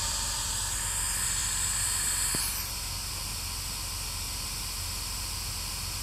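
Steady white-noise static from a ghost-hunting spirit box, over a low steady hum; the upper part of the hiss thins out about two and a half seconds in.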